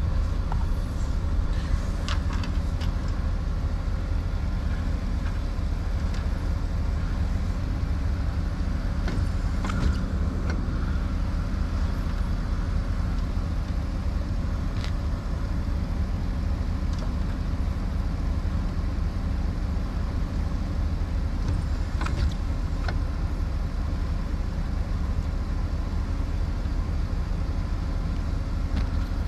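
Ford F-350 pickup engine idling steadily, with a few light knocks now and then.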